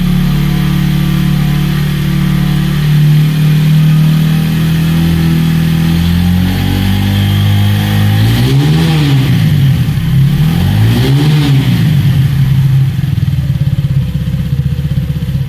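Single-cylinder motorcycle engine held at a steady raised speed under throttle, easing down a little about halfway through, then revved twice in quick rising-and-falling blips before settling back to a steady run.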